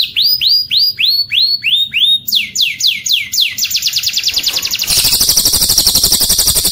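Songbird song of the 'cililin nyambung kenari' type, a cililin-style song joined to canary song and used to train contest birds. It begins with rising whistled notes about three a second, moves about two seconds in to a quicker run of repeated notes, and breaks into a very fast, high trill near the end.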